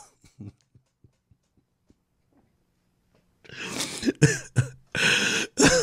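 A man bursts into hard, breathy laughter a little over halfway in, in several loud gusts.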